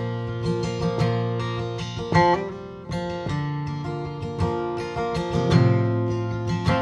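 Instrumental duet of a steel-string acoustic guitar and a round-bodied, bouzouki-like string instrument, picked and strummed in a steady tune with no singing.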